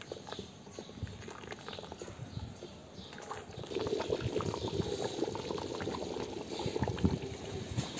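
Thick fish curry simmering in a steel pot, bubbling and popping irregularly, with a ladle stirring it at the start; the bubbling gets louder about halfway through.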